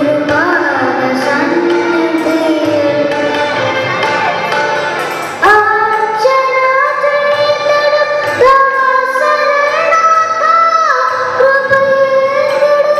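A boy singing a solo song into a microphone with instrumental accompaniment, holding long notes, with a strong new phrase starting about halfway through.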